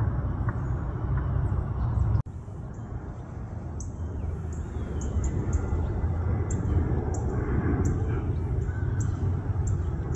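Steady low rumble of airliner engines overhead. A brief dropout about two seconds in marks a cut from an ATR twin-turboprop to a Boeing 767 freighter's jet engines. Short high chirps come through now and then.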